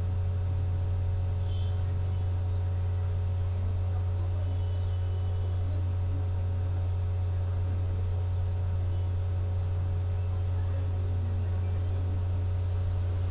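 Steady electrical mains hum, one low unchanging drone with faint higher overtones.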